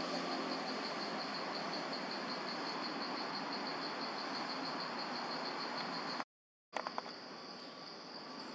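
Forest insect chorus: a high, rapidly pulsing buzz over a steady background hiss. The sound cuts out completely for a split second about six seconds in, then a few clicks sound and the pulsing buzz resumes.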